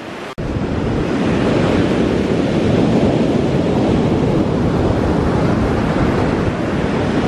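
Ocean surf breaking and washing up a sandy beach, mixed with wind rumbling on the microphone; the sound dips and cuts out for an instant near the start.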